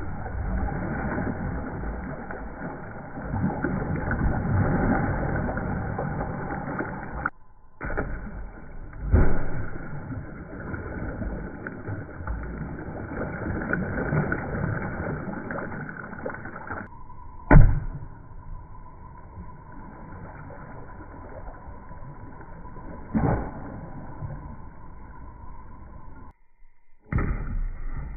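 Objects splashing into a swimming pool, played in slow motion: a churning wash of water broken by several sudden splash impacts, the loudest about two-thirds of the way through, with brief cuts between clips.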